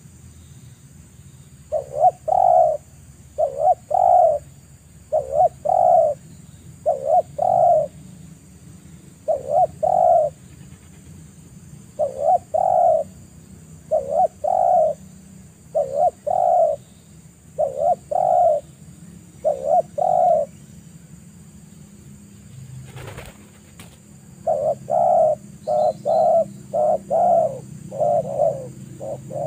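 Spotted dove cooing: a repeated short two-note coo, about one a second, that pauses for a few seconds and then resumes faster near the end. A single sharp click falls in the pause.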